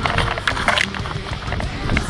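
Background music over quick footsteps and rustling.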